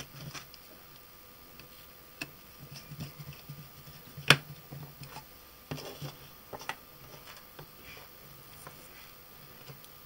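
Small clicks and taps of a small screwdriver on the screws and plastic housing of an opened mobile phone as it is screwed back together. The clicks come irregularly, with one sharp click about four seconds in.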